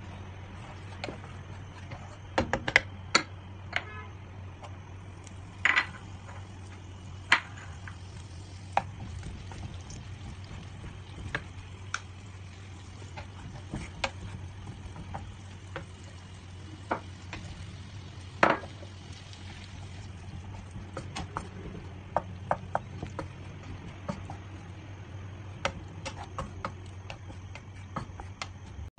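Wooden spatula stirring in a nonstick frying pan of melted butter and garlic, with irregular sharp taps and scrapes against the pan over a steady low hum.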